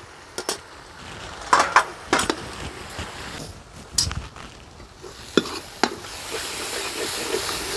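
Steel ladle scraping and knocking against a kadhai as ground spices are stirred into a frying onion-tomato masala, a few sharp clinks scattered over a sizzle. The sizzle grows louder over the last couple of seconds as the masala fries.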